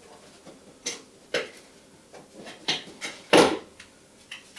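Cardboard packaging being handled and pulled at: a handful of separate knocks and scrapes, the loudest about three and a half seconds in.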